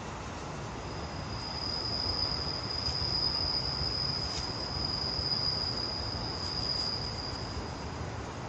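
An insect trilling one high, steady note that starts about a second in and stops shortly before the end, over a low rumble.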